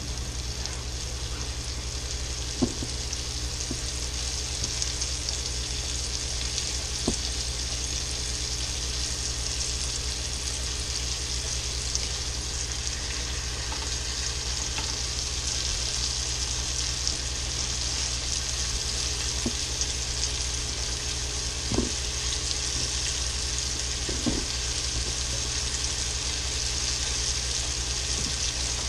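Flour-dredged hamburger steak patties frying in bacon grease in a skillet: a steady sizzle, with a few short knocks from the pan a handful of times.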